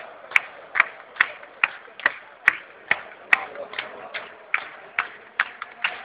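Football stadium crowd clapping in unison, about two and a half claps a second, over a steady hubbub of fans.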